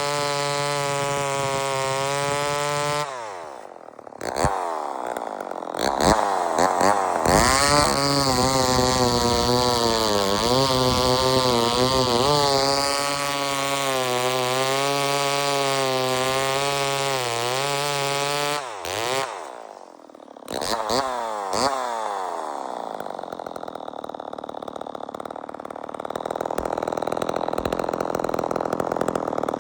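Vintage Poulan 245A two-stroke chainsaw running. It is revved up and let back down twice, holds wavering high revs for long stretches, then settles to a lower steady run near the end.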